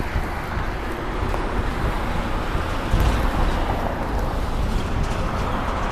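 Wind buffeting the microphone outdoors: a steady low rumble with hiss and no clear pitch, a little louder about three seconds in.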